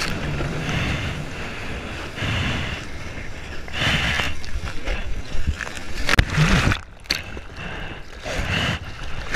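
Seawater sloshing and lapping against a surf action camera held at the surface as swells pass, with a few sharp splashes from paddling hands in the second half.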